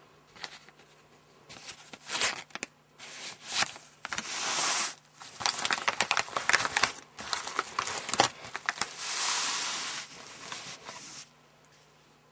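Packaging being handled: irregular crinkling and tearing in a run of short crackly bursts, with two longer tearing stretches of about a second each, one near the middle and one toward the end.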